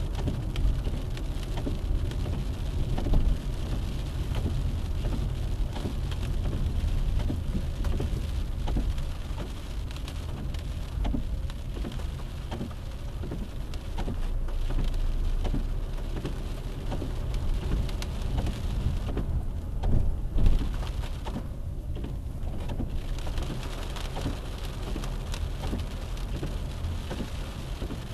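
Car driving, heard from inside the cabin: a steady low rumble of engine and tyres on the road, with many small ticks and rattles throughout and a few louder knocks.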